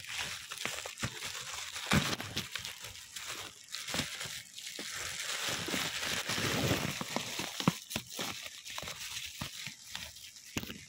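Crinkly plastic packaging being handled and crumpled, a steady rustle broken by many sharp crackles.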